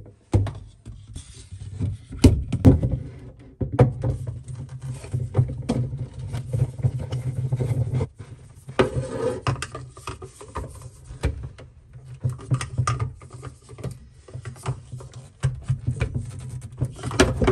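Plastic reverse-osmosis filter housing being handled and screwed onto its filter head by hand: irregular clicks, knocks and scrapes of plastic on plastic over a low rumble.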